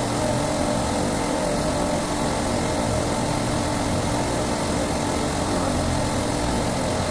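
Steady drone of running supermarket refrigeration compressors, with a few steady tones in it. Mixed in is the hiss of an oxy-fuel brazing torch flame, held on a copper joint as a replacement bypass valve is brazed in.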